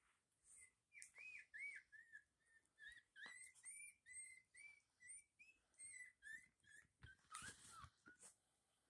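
Newborn puppies squeaking: a quick run of short, high cries, two or three a second, each rising and falling in pitch.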